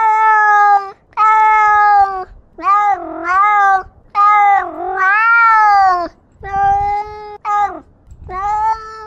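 A domestic cat meowing loudly about nine times in a row, close to the microphone of the camera it wears. Several of the calls dip and rise in pitch.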